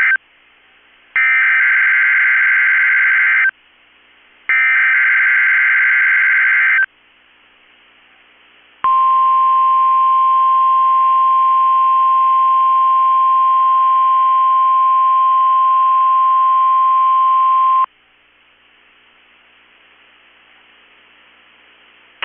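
Emergency Alert System SAME header data bursts for a test tornado warning on NOAA Weather Radio. The end of one burst is followed by two more of about two seconds each, a second apart. Then the 1050 Hz weather-radio warning alarm tone sounds steadily for about nine seconds, followed by a few seconds of faint hiss.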